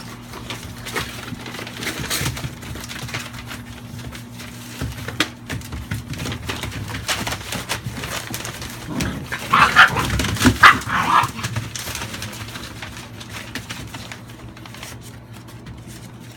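American Staffordshire bully puppies scuffling and playing on newspaper, the paper rustling and crinkling under them, with a short cluster of puppy yips about ten seconds in.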